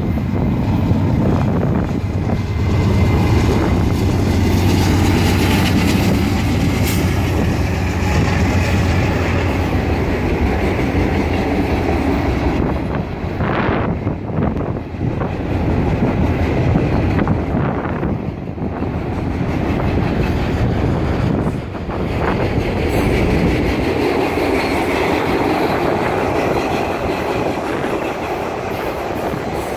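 BNSF freight train passing close by: the diesel locomotive's engine drones deep for about the first nine seconds as it goes by, then a long line of loaded flatcars rolls past with steady wheel-on-rail noise.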